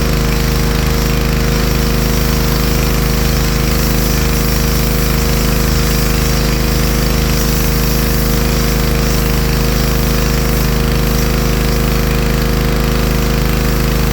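Pressure washer running steadily: the low drone of its motor and pump under the hiss of the water jet spraying the marble brick paving.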